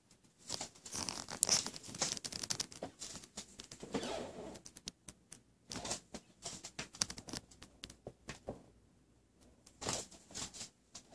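Irregular rustling, scraping and crinkling handling noise with scattered short clicks and knocks, from a handheld camera being moved about.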